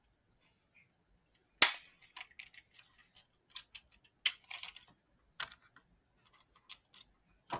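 Hard plastic parts of a toy controller clicking and snapping together as it is reassembled, with one loud snap about one and a half seconds in, then a run of smaller irregular clicks.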